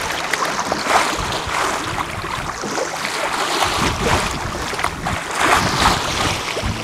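Sea waves washing and wind rushing, with wind buffeting the microphone; the wash swells and falls every second or so.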